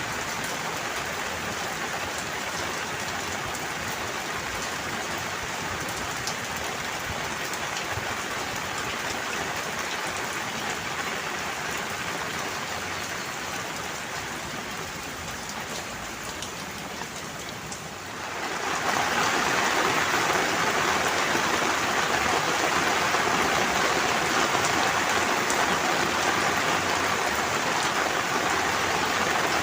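Steady rain falling on a surface with an even hiss of drops. About two-thirds of the way through it turns suddenly louder and heavier.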